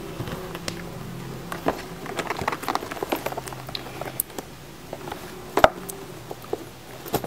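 Hands handling a leather handbag and opening its inner compartment: light rustling with scattered small clicks and taps, and one sharper click about five and a half seconds in, over a faint low hum.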